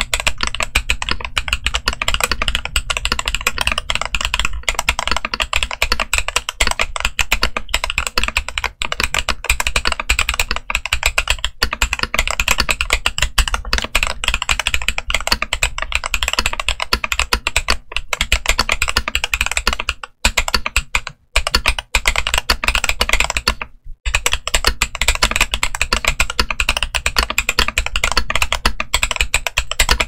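Continuous typing on a mechanical keyboard fitted with Flaming Skull Ice Blue tactile switches: a dense, rapid clatter of keystrokes, broken by a few short pauses about two-thirds of the way in.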